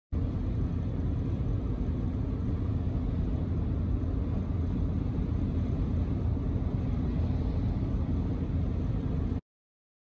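Car driving at motorway speed: a steady low rumble of engine and tyre noise. It cuts in abruptly just after the start and cuts off abruptly about a second before the end.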